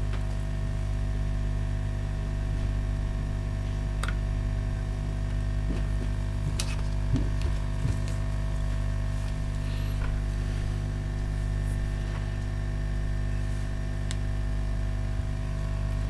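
Steady electrical mains hum from electronics repair bench equipment, with a few faint clicks scattered through.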